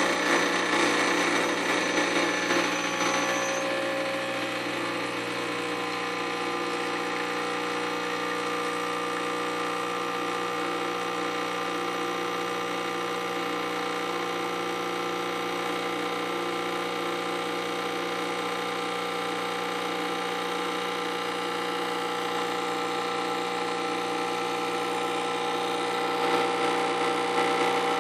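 A 1985 La San Marco espresso machine's pump running steadily while pulling a shot. It is a little louder for the first few seconds, then settles to an even hum.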